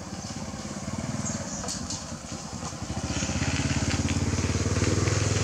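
A motor vehicle engine running with a low, fast pulse, growing louder about three seconds in as it comes closer.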